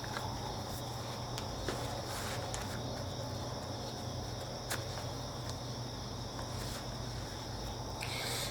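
Faint steady background of a high, insect-like trill over a low hum, with a few light clicks and a short rustle near the end.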